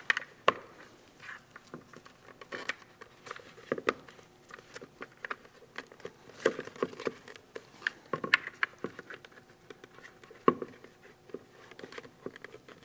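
Plastic Staz-On suspension being fitted into a hard hat shell, its clips pushed firmly into the shell's slots: irregular plastic clicks, taps and rattles, some in quick clusters.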